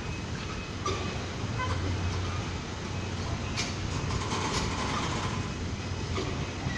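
Freight train of enclosed car-carrier wagons rolling past, a steady rumble of wheels on rails with a few sharp knocks as wheels cross rail joints, and a brief faint ringing about four seconds in.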